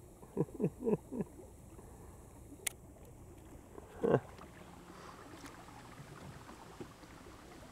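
Water lapping against a small boat, with four short falling vocal sounds in the first second and one louder vocal sound about four seconds in; a single sharp click comes between them.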